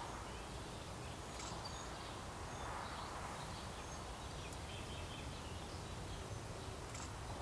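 Outdoor ambience: a steady low rumble and hiss, with faint, brief chirps of small birds a few times.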